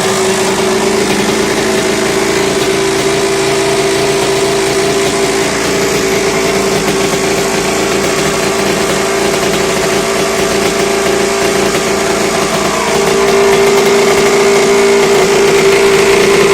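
Kawasaki KX 125's single-cylinder two-stroke engine idling steadily while it is warmed up before an oil change. About thirteen seconds in, the revs rise slightly and it gets a little louder.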